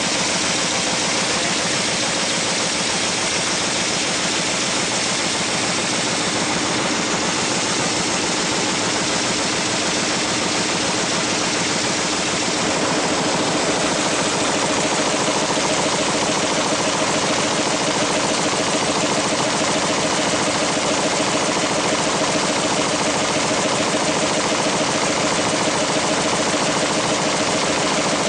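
W+D 527 envelope-folding machine running: a steady, dense mechanical clatter over a wide hiss, getting a little louder about halfway through.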